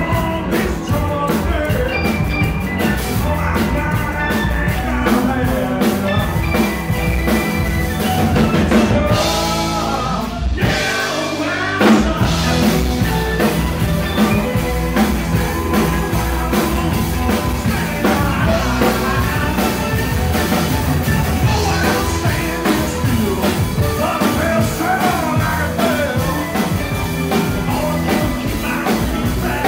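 Live blues-rock band playing: electric guitars, bass and drum kit under a sung vocal, with maracas shaken. Just past the middle the bass and drums drop out for about a second and a half, then come back in with a loud hit.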